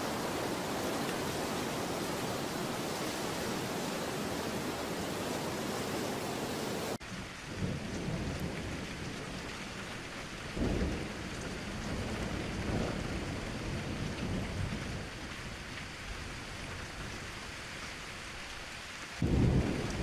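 A steady, even rushing noise that cuts off abruptly about seven seconds in, giving way to falling rain with low rolls of thunder: one about ten seconds in and a louder one near the end.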